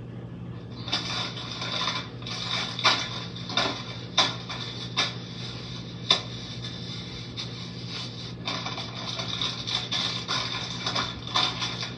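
Plastic snack wrappers and paper bags rustling and crinkling as they are handled, with frequent sharp crackles, over a low steady hum.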